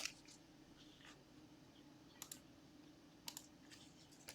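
Near silence with a low room hum, broken by two faint pairs of short clicks, about two and three seconds in.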